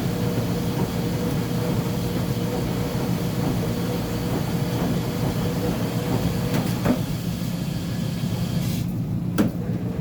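Uni-Mac UniMat 35 commercial front-load washer running mid-cycle with a steady rumble and hum. Its higher hiss falls away about nine seconds in, followed by a single knock.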